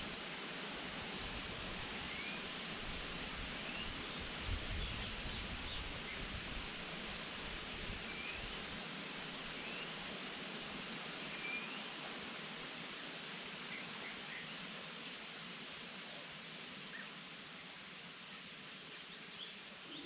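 Forest ambience: a steady, even hiss with scattered short, rising bird chirps, most of them in the first half and only a few later on.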